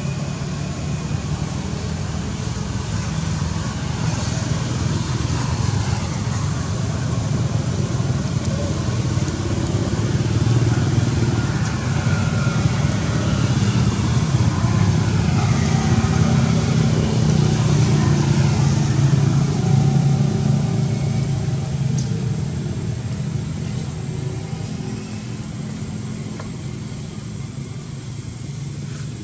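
Steady low engine rumble of motor traffic, swelling to its loudest past the middle and easing off toward the end.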